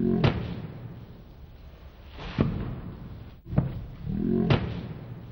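Several people shouting indistinctly over one another in a heated row, with a loud yell at the start and another about four seconds in, and a few sharp knocks in between.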